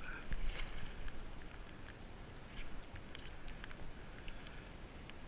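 Steady rush of river water, with a few faint clicks and rustles from the salmon being handled.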